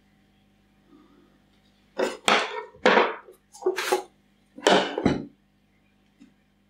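A clear plastic cup is tapped, knocked and handled against plastic containers to coax a tarantula sling out. About five loud clattering knocks and scrapes come in quick succession between about two and five seconds in.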